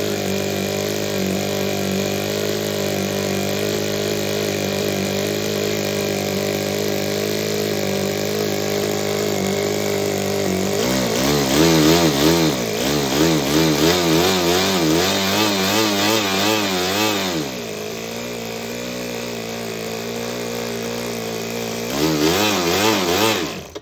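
Toyan Otto two-cylinder four-stroke nitro model engine running on a test stand while its carburettor mixture is tuned. It runs steadily at first, then about halfway through its revs rise and fall rapidly over and over, settle lower, surge once more, and the sound cuts off suddenly at the end. It is running rich, with fuel spitting from the carb.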